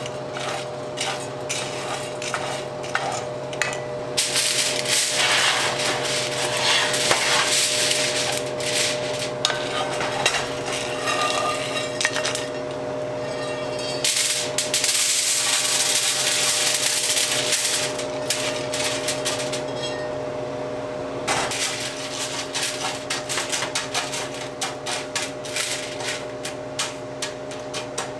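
Fresh-roasted coffee beans rattling as a wooden spatula stirs and scrapes them around a cast iron skillet. The skillet is then tipped and the beans are scraped out onto a foil-lined tray, with louder stretches of pouring, rattling and crinkling. A steady hum runs underneath.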